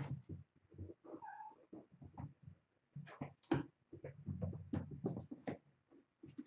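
Young kittens scampering and playing on a hardwood floor: irregular soft thumps and pattering of paws, with a short kitten mew about a second in.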